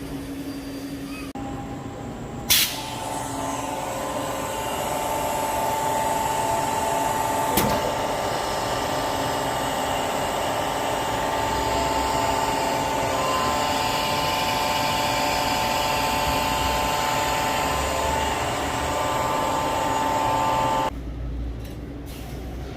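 An electric motor-driven machine, such as a power tool, starts about a second in and runs steadily with a constant whine, then cuts off suddenly near the end. A single sharp click comes shortly after it starts.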